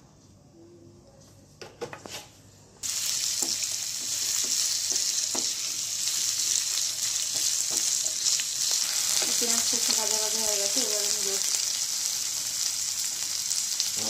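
Sliced onions hitting hot oil in a kadai: a sudden loud sizzle starts about three seconds in and keeps going while a spatula stirs and scrapes them, with small clicks of the spatula against the pan.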